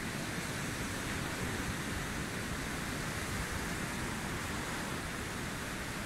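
Steady rushing noise of wind and distant surf on an open beach, with a low rumble of wind on the microphone.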